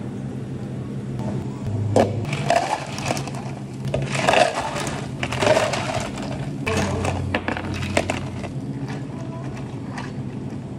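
Ice cubes being scooped and tipped into tall plastic cups, clattering and rattling in several bursts of sharp clicks. A steady low hum runs underneath, and the clatter thins out near the end as water starts to be poured over the ice from a metal pitcher.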